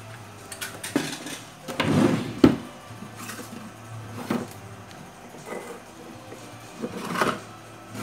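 Plastic cups, jars and lids being handled and set down on a shelf: scattered light knocks and clatters, with a sharper knock about two and a half seconds in. A steady low hum runs underneath.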